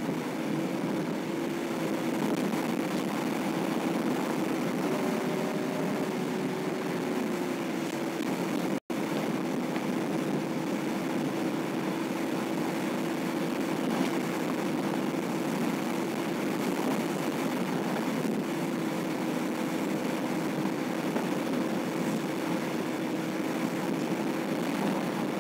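Car driving at highway speed, heard from inside the cabin: steady road and tyre noise under an engine drone whose pitch shifts slightly now and then. The sound cuts out for an instant about nine seconds in.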